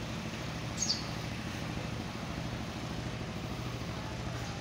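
Steady low hum of a running motor, with one short, high, falling chirp about a second in.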